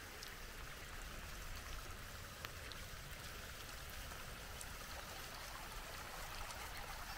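Steady rain falling, an even hiss with a few single drops ticking close by.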